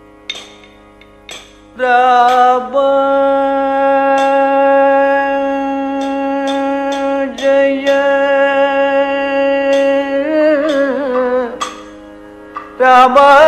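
Kathakali singing: a male voice holds one long note for several seconds, then winds down through a wavering phrase, over a faint steady drone with scattered percussion strokes. A new sung phrase starts loudly near the end.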